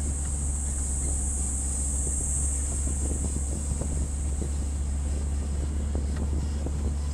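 Steady low rumble of a vehicle's engine and tyres heard inside the moving cabin, with small scattered rattles and a constant high hiss over it.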